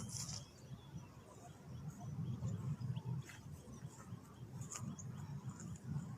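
Faint outdoor ambience: a few short, high chirps of small birds scattered over a low, steady rumble.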